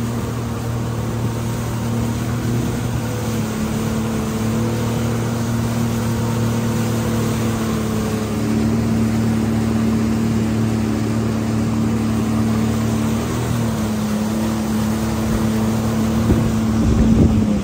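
Jet ski engine running steadily while under way, a constant hum over the rush of water and wind, briefly louder near the end.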